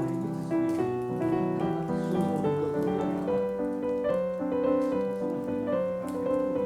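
Background piano music: a slow melody over sustained chords.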